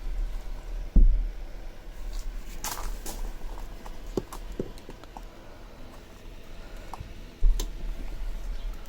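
Scattered light clicks and taps, with two heavy dull thumps: one about a second in and one near the end.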